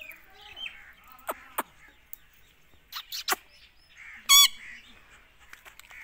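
Rose-ringed (Indian ringneck) parakeet making soft chattering sounds, with several sharp clicks, then one short loud screech about four seconds in.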